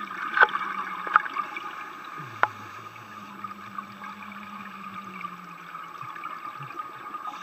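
Underwater sound during a scuba dive: steady bubbling and gurgling water, with a few sharp clicks in the first couple of seconds and a low hum that comes and goes.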